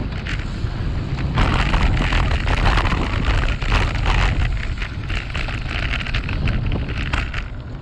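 Wind buffeting the microphone of a camera on a moving road bike, with tyre and road noise; a rougher hiss joins from about a second and a half in and eases near the end.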